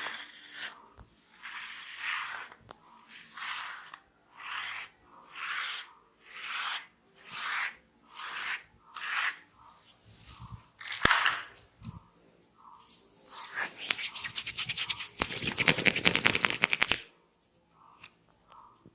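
Head massage: hands rubbing over hair and scalp in even strokes, about one and a half a second, then a single sharp crack about eleven seconds in. Near the end comes a few seconds of fast crackling, the kind of sound that hair cracking makes.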